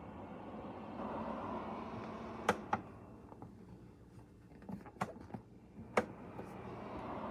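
Electric fireplace heater's fan blowing warm air with a steady rushing hiss that swells and eases as settings change. Several sharp clicks come from its control switch and knob being turned.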